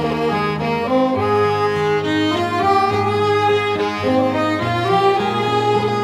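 Background music of bowed string instruments playing held notes in several parts, a higher melody over lower sustained notes.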